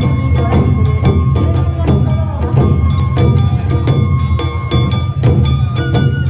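Traditional Awa Odori dance music: brisk, evenly spaced percussion strikes, about three or four a second, over sustained high tones and a steady low drum rumble.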